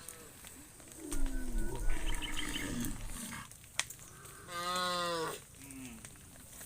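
Cattle mooing: a long, deep moo starting about a second in, then a shorter, higher-pitched moo answering about four and a half seconds in. The first call is the louder of the two.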